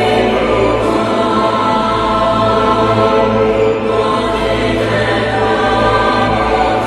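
Background music with a choir singing sustained chords.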